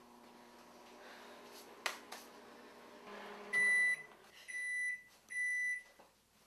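Microwave oven running with a low hum that stops a little over three seconds in, then three beeps as the cooking cycle finishes. There are two light clicks about two seconds in.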